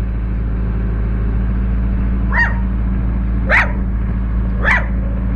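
Caterpillar 308C excavator's diesel engine running with a steady low drone, while a dog barks three times, about a second apart, starting a couple of seconds in.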